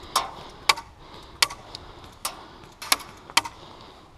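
Airsoft gunfire: about seven sharp single cracks at irregular intervals, not a continuous burst.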